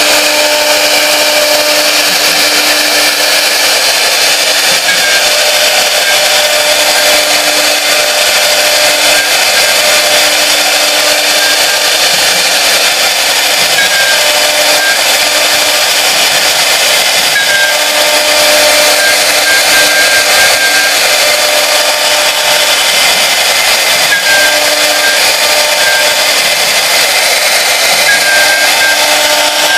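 Three-spindle CNC wood router with one spindle running at high speed, its bit routing scroll-pattern grooves into a wooden board. It gives a loud, steady whir and cutting hiss, with a low tone and a higher one that come and go.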